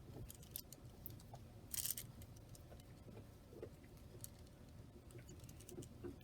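Faint, irregular clicking of a miniature Rubik's Cube's layers being turned slowly by fingers, with a louder cluster of clicks about two seconds in.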